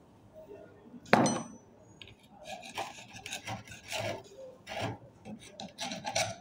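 Rust and carbon being scraped and rubbed off a corroded starter motor's parts during cleaning, in repeated irregular strokes. A single metallic clink with a short ring comes about a second in.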